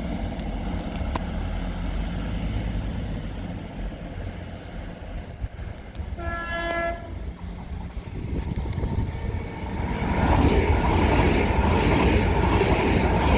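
A train horn sounds one short, single-pitched tone about six seconds in, then a train approaches and passes, its running noise growing loud over the last few seconds.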